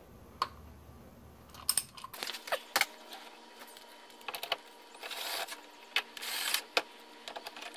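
A few metallic clicks from a wrench snugging the oil drain plug, then a cordless drill/driver running in two short bursts, driving screws into a plastic underbody panel, with small clicks and rattles of handling in between.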